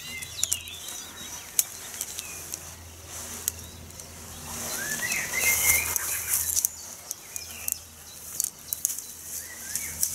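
Tent poles clicking and rattling as their sections are handled and joined, with rustling of tent fabric in the middle and birds chirping in the trees.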